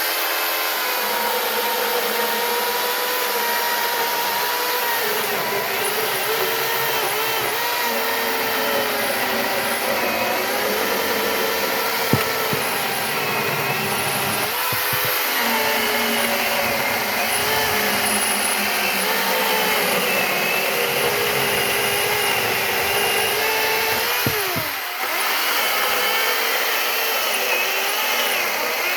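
Ridgid 18-volt cordless chainsaw with a 12-inch bar, its electric motor starting up and running with a steady whine. It is cutting wood, the pitch wavering and dipping briefly under load twice.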